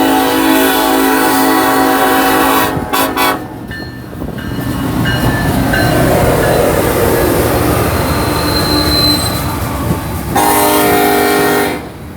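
BNSF diesel locomotive air horn sounding a long, loud chord that breaks into a few quick short blasts about three seconds in. The coal train then rumbles past with a brief high wheel squeal, and the horn sounds again for about a second and a half near the end, cutting off sharply.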